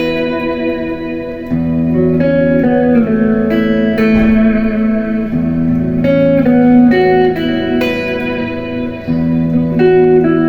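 Ibanez JEM7V electric guitar played with a clean tone: a melodic line of sustained notes changing about every half second, over held low notes.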